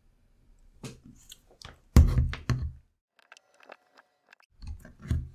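Hands handling stickers and a 3D-printed plastic mouse shell: rustles, light clicks and knocks, loudest about two seconds in, with a brief faint squeak about three to four seconds in, then more handling thumps near the end.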